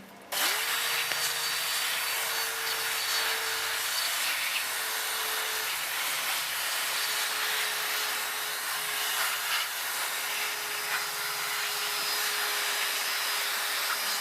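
Electric air blower switching on about half a second in and running steadily, its motor whine holding one pitch under a loud rush of air, as dust is blown out of an amplifier.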